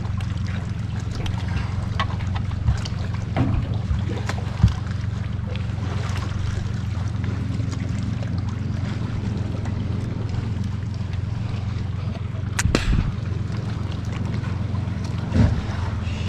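A boat motor idling with a steady low hum, with a few short knocks and splashes as a catfish is handled at the boat's side.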